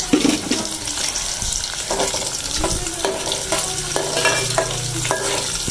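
Sliced onions and cumin seeds sizzling in hot oil in a metal pot. A steel ladle stirs them, scraping and knocking against the pot several times.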